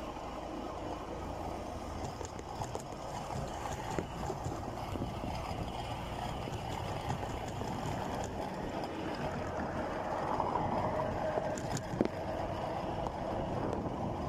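Steady noise of a moving vehicle, growing a little louder near the end, with a couple of sharp clicks.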